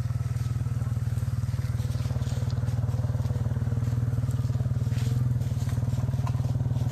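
ATV engine running steadily close by, a low, even, rapidly pulsing drone, with a few faint clicks over it.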